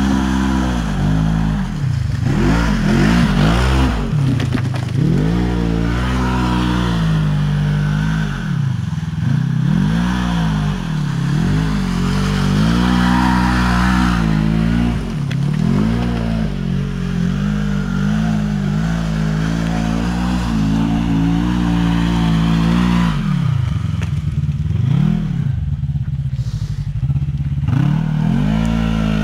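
Side-by-side UTV engines. One idles steadily close by while another revs up and falls back again and again, spinning donuts in the mud, with its tyres churning and throwing mud.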